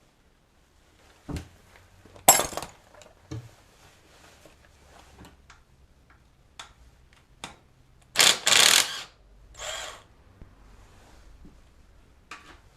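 Intermittent mechanical work noises: scattered metallic clicks and knocks, with a few louder scraping or rattling bursts about two seconds in and again around eight to ten seconds in, typical of hand tools working on the motorcycle engine.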